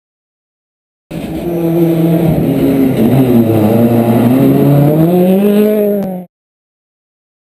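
Ford Fiesta WRC rally car's turbocharged four-cylinder engine going through a hairpin. The engine note falls as the car slows into the bend, then climbs as it accelerates out. The sound cuts in abruptly about a second in and stops suddenly about six seconds in.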